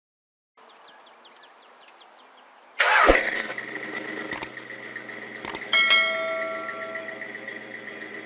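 An engine is cranked with a faint, quick ticking, catches with a sudden loud start about three seconds in, then keeps running with a steady high whine. A few sharp clicks are heard over it.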